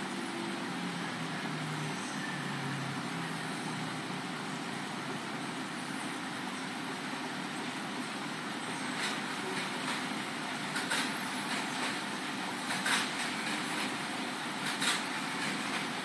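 Steady hum and hiss of running machinery, with a handful of short, sharp clicks in the second half.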